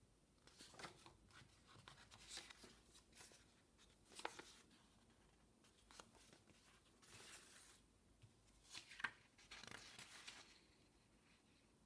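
Faint paper rustling as the pages of a printed instruction manual and loose sheets are handled and turned, in a series of soft swishes with two sharper flicks, about four seconds in and again about nine seconds in.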